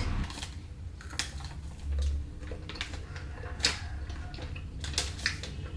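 Someone chewing a crunchy chocolate granola snack bar: irregular soft crunches and clicks a few times over several seconds, over a steady low hum.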